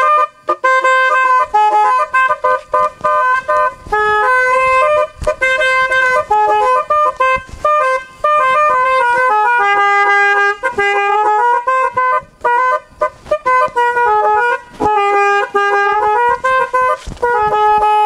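Snail-type telolet horn driven by a DAV musical horn module, playing a brisk song melody as a string of short and held horn notes stepping up and down, with brief breaks between phrases.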